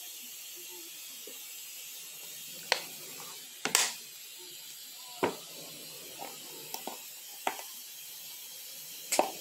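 Kitchen things being handled: a handful of short, light clicks and knocks, the loudest about three and a half seconds in, over a faint steady hiss.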